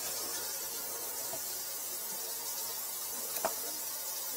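Steady hiss of tap water running down a sink drain, with one faint click about three and a half seconds in.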